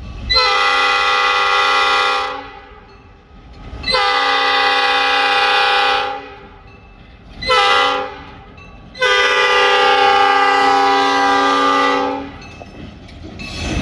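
Freight locomotive air horn sounding the grade-crossing signal as the train approaches the crossing: two long blasts, one short, and one long. Each blast is a chord of several notes.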